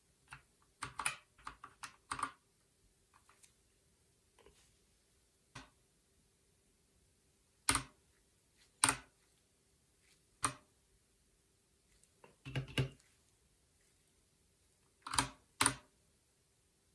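Keys on a Keychron K2 V2 mechanical keyboard with Gateron Brown switches, pressed one at a time: a short quick run of keystrokes at first, then single clacks a second or two apart.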